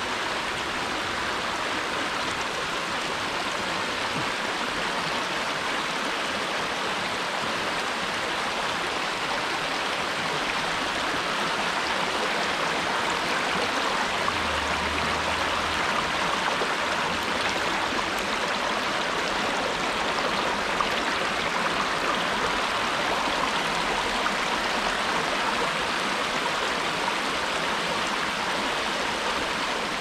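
Shallow creek water rushing and splashing over rocks in a stony streambed, a steady rush without a break.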